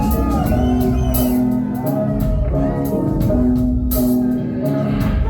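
Live band playing an instrumental passage with a steady beat: repeating bass notes under drums with regular cymbal hits, and no vocals.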